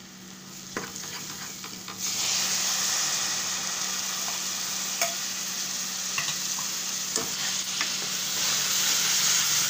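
Onions frying in hot oil in a steel pot, stirred with a steel ladle. About two seconds in, a loud, steady sizzle sets in as chopped tomatoes hit the oil, and keeps going while they are stirred, with a few clicks of the ladle against the pot.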